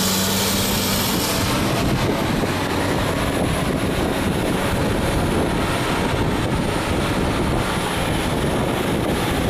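Engine of the heavy bucket machine loading sludge into a truck, running steadily.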